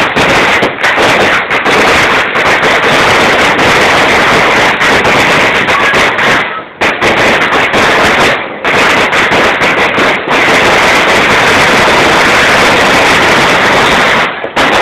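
A dense, continuous barrage of firecrackers and fireworks crackling and popping, loud enough to overload the microphone, with a few brief lulls.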